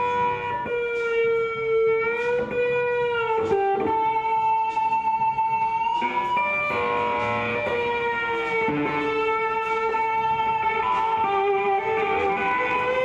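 Electric guitar sound-checked through an amp set to heavy distortion: long sustained single notes, several bent or slid up and down in pitch.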